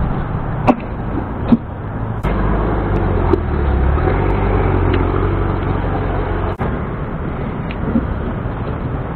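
Road traffic going by, a steady low rumble of cars that grows louder for a few seconds in the middle. A couple of sharp clicks come about a second in.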